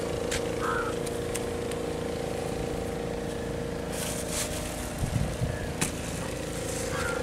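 Steady engine hum holding one pitch throughout, with brief crinkling of a plastic bag being handled about four seconds in.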